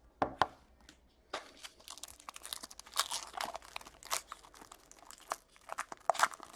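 Wrapper of a trading-card pack being torn open and crinkled by hand: a dense, irregular run of crackles, after a couple of light knocks at the start.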